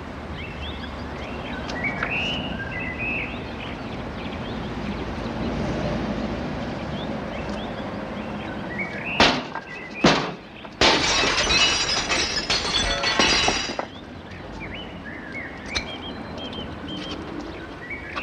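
A window pane being smashed: two sharp knocks, then the glass breaking and shards crashing and tinkling down for about three seconds. Birds chirp in the background.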